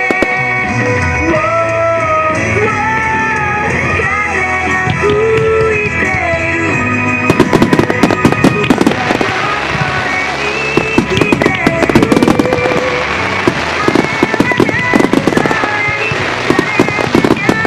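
Music with a melody playing alongside a fireworks starmine; from about seven seconds in, a dense rapid barrage of firework bursts and crackling comes in over the music.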